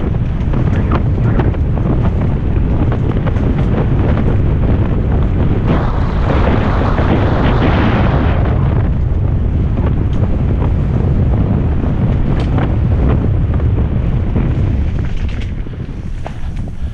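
Heavy wind buffeting on a helmet-mounted camera's microphone during a fast mountain-bike descent on a dirt trail, mixed with tyre noise and frequent sharp rattles and clicks from the bike. A stretch of louder hiss starts about six seconds in and lasts a couple of seconds.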